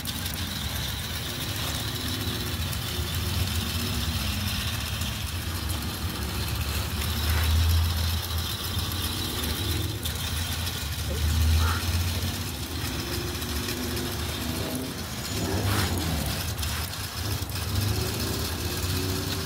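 Small electric drive motors and Meccano gear train of a model traction engine whirring steadily as it drives along, its pitch shifting a little, over a low rumble.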